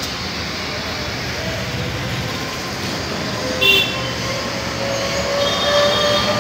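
Steady street traffic noise. There is a brief sharp sound with a high tone about four seconds in, and a faint steady high-pitched tone from about five seconds in.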